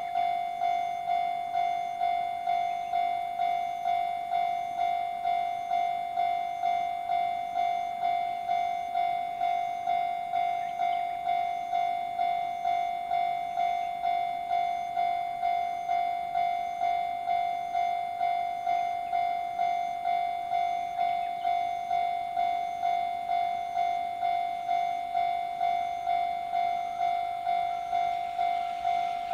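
Railway level crossing alarm ringing, an electronic bell tone struck about one and a half times a second without pause, warning that a train is coming. Near the end the approaching train begins to be heard faintly underneath.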